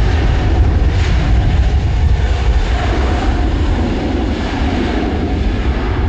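Jet airliner engines running, heard through heavy wind buffeting on the microphone that gives a loud, churning low rumble.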